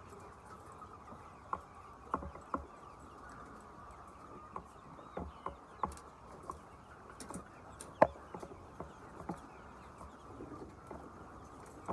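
Chickens, with soft calls over a steady background din, and scattered light taps and one sharp knock about eight seconds in.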